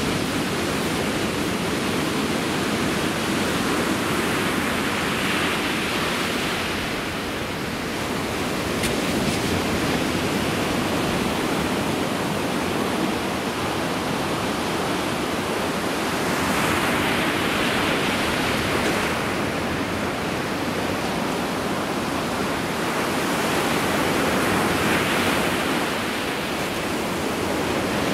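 Ocean surf breaking on a beach: a steady rush of water with three louder wave crashes rising and falling slowly.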